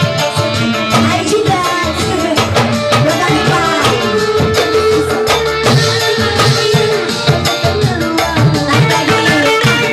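Live band music with quick hand-drum beats, keyboard and electric guitar, and a woman singing into a microphone; a long note is held in the middle.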